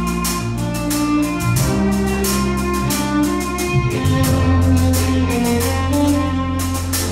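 Live band music: a violin plays the melody over a drum kit keeping a steady beat on the cymbals, with low bass notes underneath.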